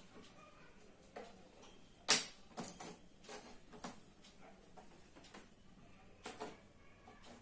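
Irregular clicks and taps of a thin hand tool and fingers against the metal and plastic frame of an opened LED TV panel. The sharpest click comes about two seconds in, followed by a few lighter taps over the next two seconds and a pair near the end.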